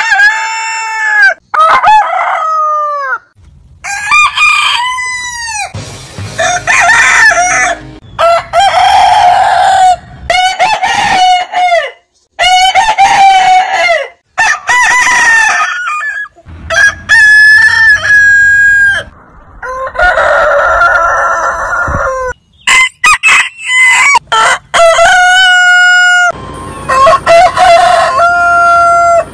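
Roosters crowing one after another, many separate cock-a-doodle-doos from different birds, each starting and cutting off abruptly as the next one begins.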